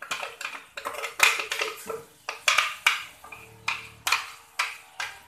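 A run of sharp clinks and knocks, about a dozen, as a glass blender jar and a metal spatula strike the rim and sides of a thin aluminium wok while blended paste is tipped and scraped into it.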